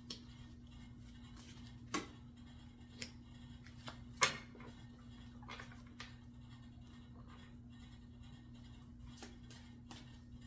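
Scattered light clicks and taps, the loudest about four seconds in, over a steady low electrical hum.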